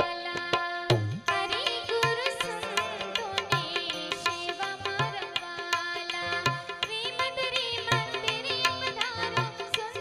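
Live Indian devotional aarti music: a banjo melody with many quick plucked notes over tabla, the low tabla strokes sounding at a steady pulse.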